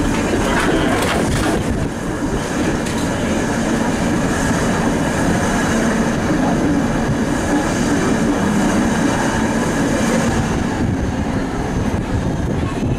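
Ride noise heard from inside a 1951 PCC streetcar rolling along the street: a steady rumble of wheels on rails, with rattles and clicks in the first couple of seconds and a steady low hum through the middle.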